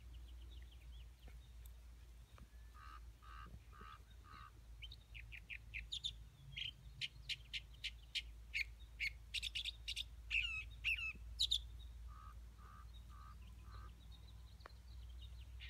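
A songbird singing: a few low repeated notes, then a fast run of sharp high notes and quick sweeping calls, then the low repeated notes again near the end. A faint low rumble runs underneath.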